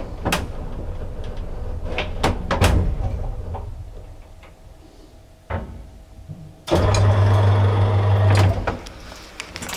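Old hotel cage lift working: scattered clicks and rattles from its gates and mechanism. About seven seconds in, a loud steady electric hum with rattling starts suddenly, lasts about two seconds and then fades.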